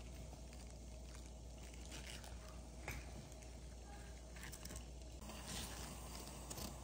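Faint crackling and small clicks of fresh, wet kale leaves being handled, over a steady low hum.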